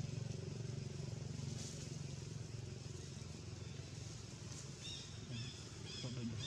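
A steady low motor hum, like a passing vehicle engine, that fades within about the first second, over an outdoor background. From about five seconds in, a run of short, high chirps repeats roughly twice a second, much like a small bird calling.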